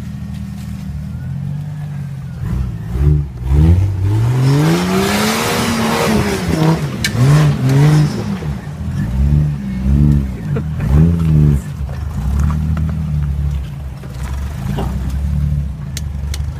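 Jeep Wrangler TJ engine working under load as it crawls over rocks and roots. It runs steadily at first, then revs up and down over and over for several seconds, and settles back to a steady lower run near the end.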